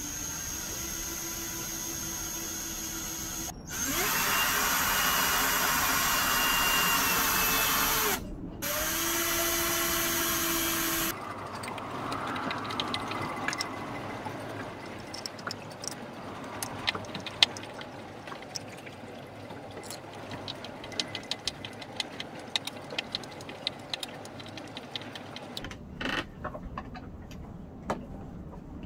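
Cordless drill running in three bursts into the cabin bulkhead, the second burst the loudest. After it come scattered clicks and knocks of parts being handled and fitted.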